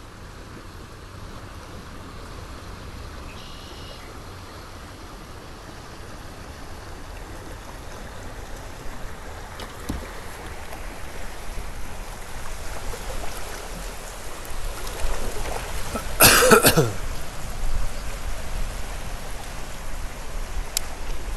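River current running and trickling, slowly growing louder. A brief loud burst of noise comes about sixteen seconds in.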